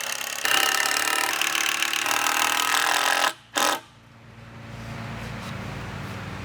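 Cordless Makita impact driver (brushed motor) hammering a screw into a 2x4 for about three seconds, its pitch dropping as it bites, then a short second burst. A quieter steady low hum follows for the rest.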